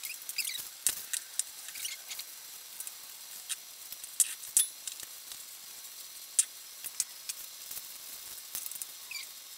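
Plastic Ziploc piping bag crinkling and clicking as leftover mousse is squeezed out of it into a glass bowl, with irregular sharp little ticks and light taps of plastic and glass.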